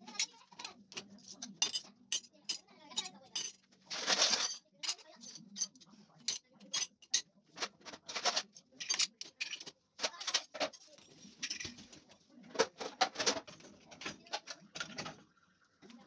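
Metal cutlery and glassware clinking as they are set into a dishwasher's wire racks: many sharp clinks, with louder clatters about four and eight seconds in.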